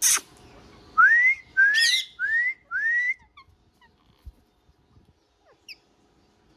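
A green parrot whistling: four loud rising whistles in quick succession, each sliding up and cut off short, followed by a few faint short chirps and a single falling note. A sharp click comes at the very start.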